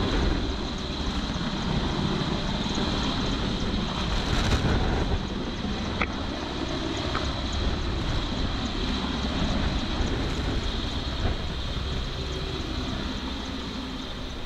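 Rescue helicopter hovering low overhead: a steady rotor and turbine din with a constant high whine. It is mixed with the rush of rotor downwash and wind buffeting the microphone.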